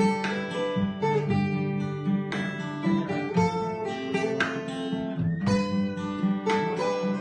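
Acoustic guitar music: chords strummed every second or so, with the notes ringing on between strokes.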